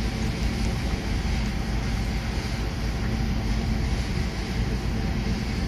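Steady low rumbling noise with a faint hum running under it, with no distinct knocks or changes.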